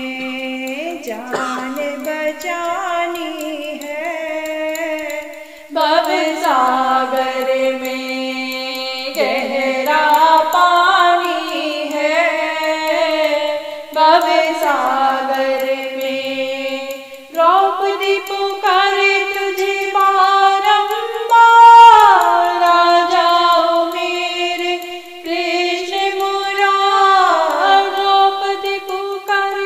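A woman singing a Hindi devotional bhajan to Krishna, one voice holding long notes with sliding ornaments in phrases a few seconds long.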